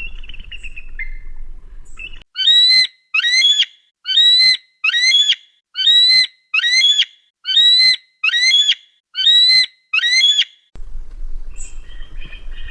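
Eagle calling: a short falling cry, then a long run of high, piercing calls, about eleven in a row, each split into two quick hooked notes, ending shortly before an outdoor background with fainter calls comes in near the end.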